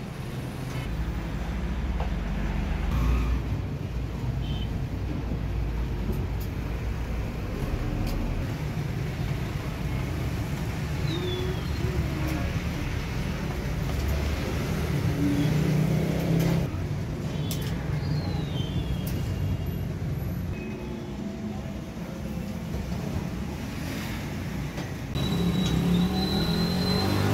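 Steady rumble of road traffic with motor vehicles passing, and a few light knocks.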